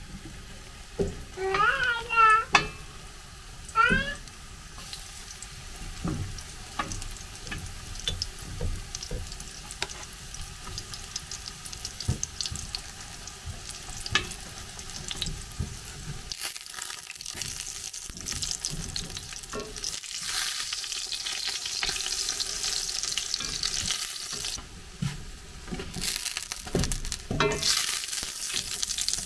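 Pancake batter frying in hot oil and butter in a cast-iron skillet: a steady sizzle that grows louder in the second half, with scattered scrapes and taps of the spatula. A few brief high-pitched squeals stand out about two and four seconds in.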